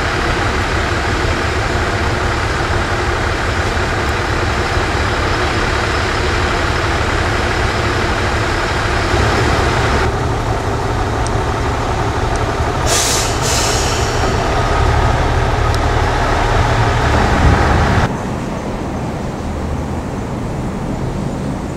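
Yard shunting vehicle running steadily as it moves railway cars, with two short hisses of compressed air from the air brakes about thirteen seconds in. The sound drops quieter near the end.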